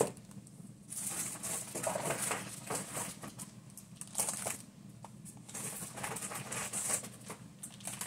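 Plastic packaging crinkling and rustling in several irregular bursts as small packaged jewelry pieces are handled and unwrapped.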